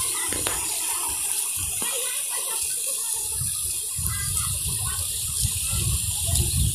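Steady rushing hiss of water: rain or floodwater running. A low rumble joins about four seconds in.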